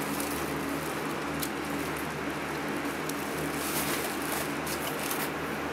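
Electric fans running steadily with a low hum, and a few soft crinkles and knocks from a cardboard box and plastic wrap being handled.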